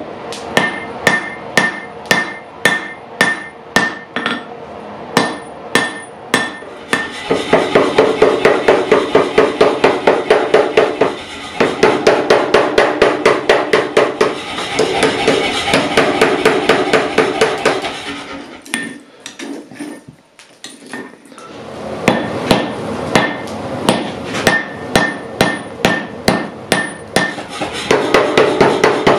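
Hammer blows forging steel on an anvil, each strike ringing brightly, about two to three a second. About seven seconds in, the blows speed up and run together into rapid, steady pounding. After a short quieter spell past the middle, the spaced ringing strikes come back and quicken again near the end.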